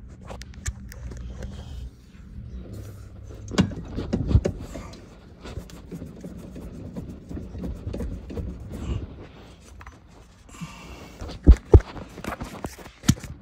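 Scraping, rattling and knocking of a stuck EZGO RXV electric brake being shaken and worked at by hand on the end of the motor shaft. A few sharp knocks stand out, about four seconds in and a close pair near the end.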